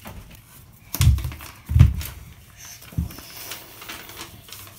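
Three dull thumps with light rustling of paper and cardboard as toy packaging and its instruction card are handled.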